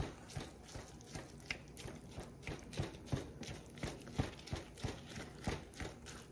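A cooking utensil repeatedly knocking and scraping in a frying pan as plant-based ground meat is stirred and broken up, about two or three knocks a second.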